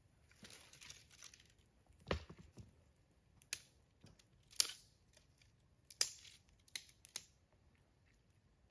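Dry sticks and twigs being broken by hand for a campfire: a brief rustle, then about six sharp snaps spread over several seconds.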